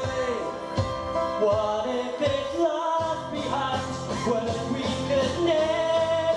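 Male voices singing a pop song into microphones over a loud backing track. The bass drops out for a moment between about two and three seconds in, then comes back in.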